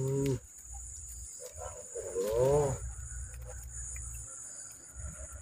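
Insects shrilling steadily in a high, even tone, with a brief voice sound right at the start and a short wavering vocal sound about two seconds in, the loudest moment.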